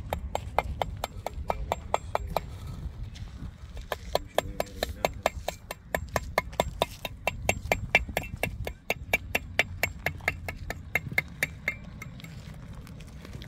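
A small hammer chipping at a piece of lava rock set on a stone block, a quick run of sharp clinks at about four a second. The tapping pauses briefly about two seconds in, resumes, and stops near the end.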